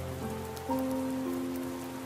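Slow, soft piano notes sounding one after another and ringing on, over steady rain pattering.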